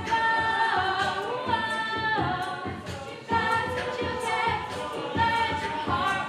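An a cappella vocal group singing in close harmony, several voices moving between held chords, over a steady beat.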